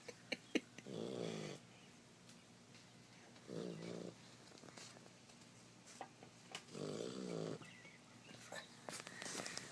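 Bear snoring: four snores about three seconds apart, each under a second long. Two sharp clicks in the first second are louder than the snores.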